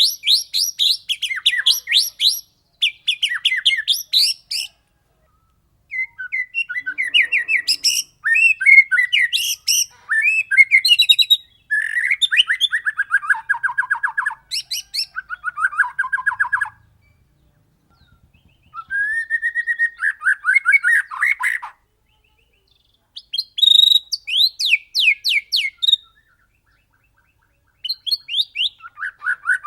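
White-rumped shama (murai batu) singing in loud phrases of fast repeated notes and rolling trills, some high and falling, some lower. The phrases are broken by short pauses of a second or two.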